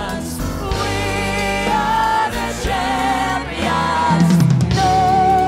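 Male singer holding long notes over a live band with a full drum kit.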